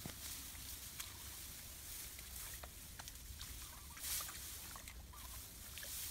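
Tall grass rustling and small scratchy clicks as hands search through the grass and mud, with a brief louder rustle about four seconds in and a low steady rumble underneath.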